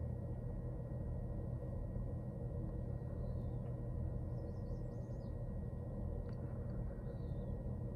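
Steady low outdoor background rumble, with a few faint, brief high chirps from birds about three, five and seven seconds in.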